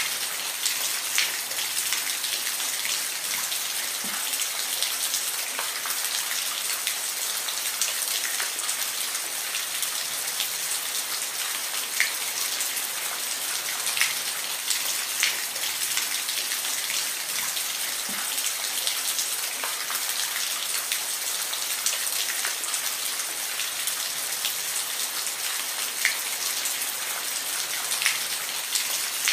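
Steady rain falling, a continuous hiss with scattered close drips and taps of individual drops hitting a surface.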